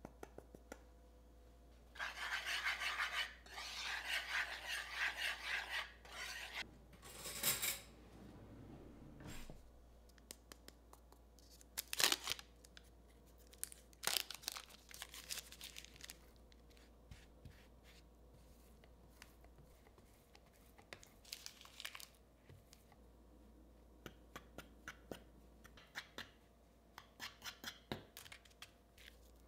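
Rapid, rhythmic rasping strokes for about four seconds, then a few more scrapes and scattered sharp clicks and light taps, the loudest a sharp knock near the middle.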